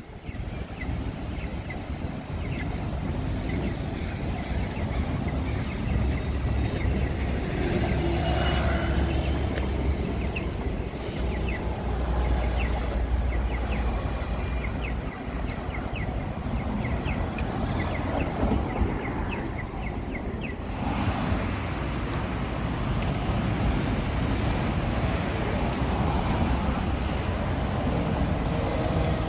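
City street traffic: cars and buses running and passing, with a steady low rumble and wind on the microphone. A run of light ticks comes in the middle.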